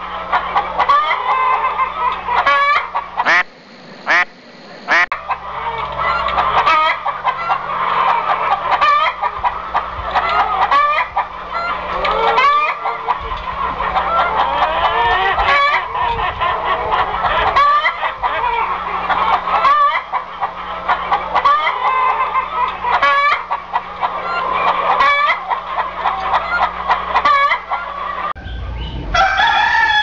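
Chickens clucking in a dense, continuous chatter, with rooster crowing, and a low steady hum underneath. The clucking drops away briefly about three to five seconds in.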